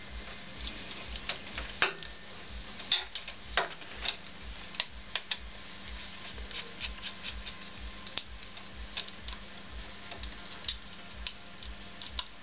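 Light, irregular metallic clicks and taps from hand work on a Honda CX500 carburetor being fitted, several a second at times, over a faint steady hum.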